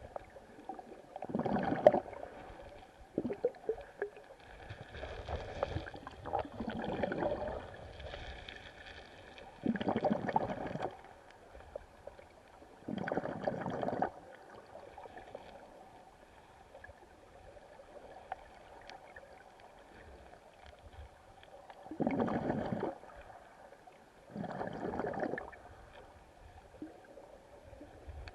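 Muffled river water heard underwater, gurgling against the camera, with whooshing surges of about a second every few seconds.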